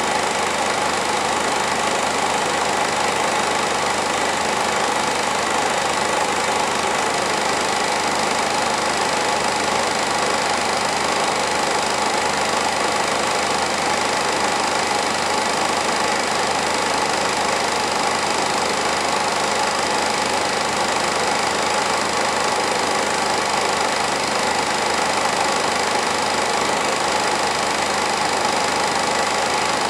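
Film projector running: a steady motor whir with the hiss of the film going through, unchanging throughout.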